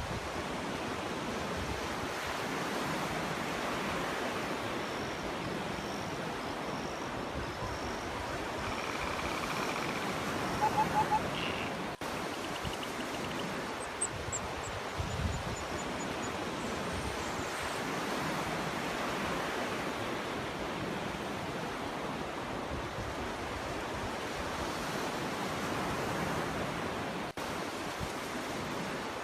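Steady wash of surf breaking on a beach. Faint short bird chirps come in now and then, with three quick, louder notes about eleven seconds in.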